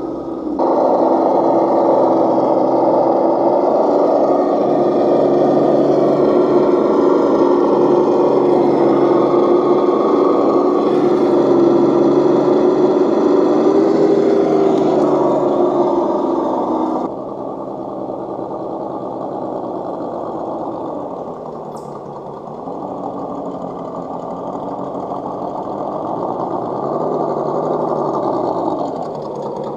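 Electric motor and geartrain of a scale RC rock-crawler truck whining steadily as it crawls over roots and rocks. The pitch dips and rises a few times in the second half as the throttle changes.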